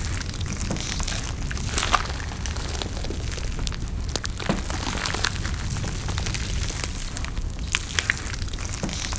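Close-miked eating sounds: chewing and mouth noises with frequent small clicks and crackles over a steady low rumble.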